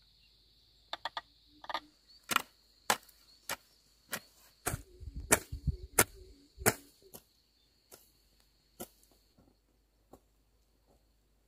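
A metal hoe chopping into the soil in a series of sharp strikes, roughly two a second, with heavier dull thumps in the middle of the run. A steady high insect drone runs underneath.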